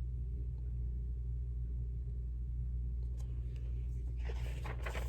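Steady low hum of room or electrical noise with no speech. About four seconds in, faint rustling with a few soft clicks begins, the sound of a book page being turned.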